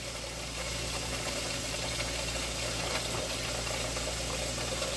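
Big aluminium pot of cabbage soup boiling on an electric stove: a steady hiss and bubbling with a low hum underneath.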